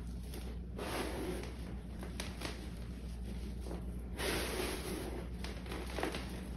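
Hands squeezing and crumbling dyed gym chalk, the powder and small clumps crunching and sifting between the fingers in a few soft bursts.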